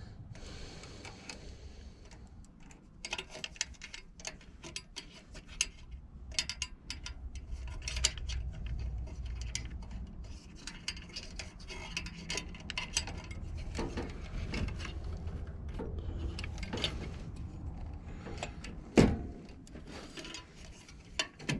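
Hands working wiring at a furnace control board: many small irregular clicks, taps and rustles of wires and parts being handled, with one louder knock near the end.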